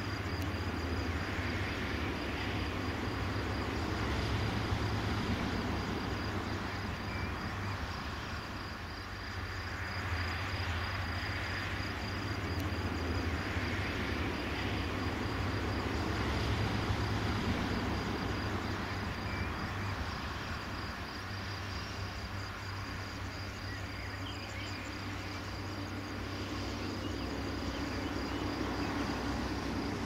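Summer outdoor ambience. An insect keeps up a rapid, even, high-pitched trill over a steady low hum, and a soft rushing rises and falls every few seconds.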